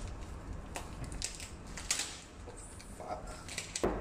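A spice jar being handled and dried mixed herbs shaken into a bowl: scattered light clicks and short rustling shakes, with a dull knock near the end as the bowl is moved on the counter.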